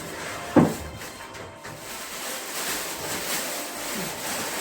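One sharp knock about half a second in, then rustling handling noise as decorations and objects are moved about.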